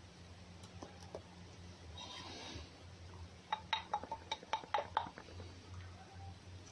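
A quick run of about ten sharp, slightly ringing clicks over about a second and a half, like hard objects knocking together, over a low steady hum.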